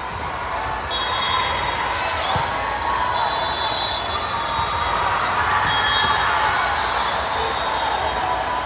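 Indoor volleyball rally on a hardwood gym floor: sneakers squeaking in short bursts, a few sharp ball contacts, and players' calls and spectator chatter echoing in the large hall.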